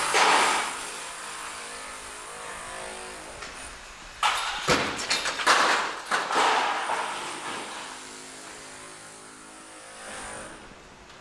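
Roadworks machinery: an engine running steadily with a faint high whine, broken by loud bursts of banging and scraping near the start and again about four to seven seconds in.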